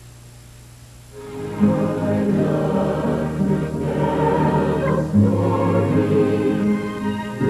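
Choral music: a choir singing over a low sustained accompaniment, coming in and swelling about a second in.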